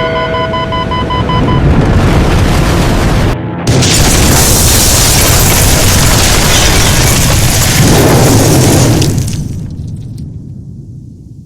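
Loud explosion and crash rumble, with held music notes dying away in the first second or so. The rumble drops briefly about three and a half seconds in and comes back louder. It then fades over the last few seconds and cuts off.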